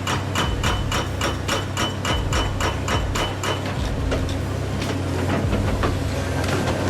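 Hydraulic breaker hammer pounding rock in rapid, even blows, about five a second, each with a metallic ring. The blows stop about three and a half seconds in, leaving a steady machine hum.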